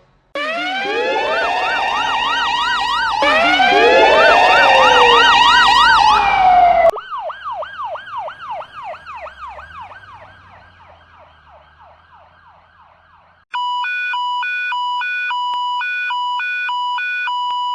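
Several emergency-vehicle sirens sounding at once, slow wails overlaid with fast yelps, until they cut off about seven seconds in; a single fast yelp siren then carries on and fades away. Near the end a two-tone hi-lo siren starts abruptly, switching between two notes about twice a second in the European style.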